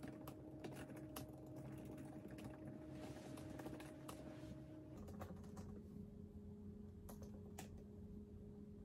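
Typing on a MacBook laptop keyboard: faint, irregular key clicks over a low steady hum.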